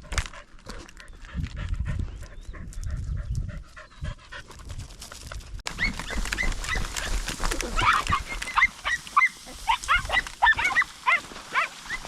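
Podenco hounds yelping, many short high yelps several a second, starting abruptly about six seconds in; before that, a low rustling rumble.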